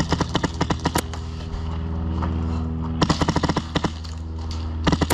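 HPA airsoft rifle firing three rapid full-auto bursts, each about a second long, a quick string of sharp cracks.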